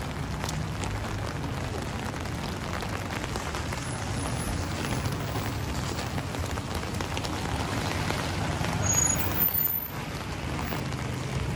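Road traffic on a wet city street: vehicle engines running and tyres on the wet road, steady throughout. A louder vehicle sound comes about nine seconds in.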